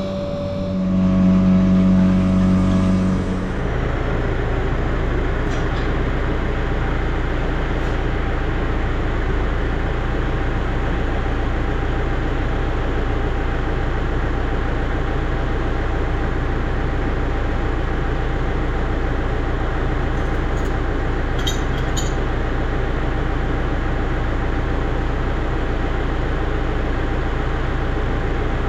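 A farm vehicle's engine running, with a strong pitched drone for the first few seconds that then gives way to a steady, even running noise as it drives along. A few faint clicks come about two thirds of the way through.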